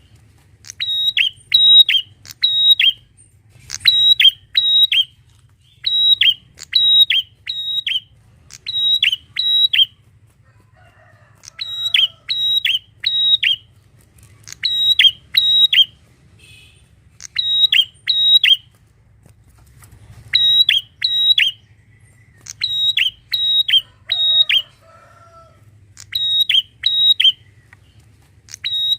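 Prenjak (prinia) singing loudly: quick bursts of three or four sharp, high chirping notes, repeated over and over with short pauses between groups.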